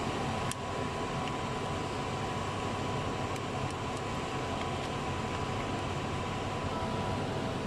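Steady background hiss and hum of a workshop, with a single sharp metallic click about half a second in and a few faint ticks later, as parts are handled.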